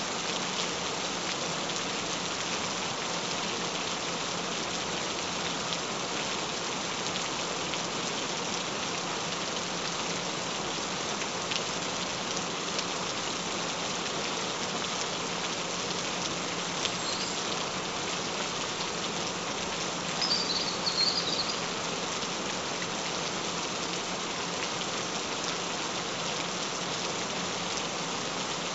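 Steady rain falling, an even hiss with occasional individual drop ticks. About twenty seconds in, a brief high chirping sound rises above the rain.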